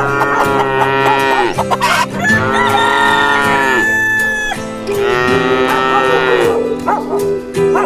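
Music with farm-animal calls mixed in, long held notes changing every second or two.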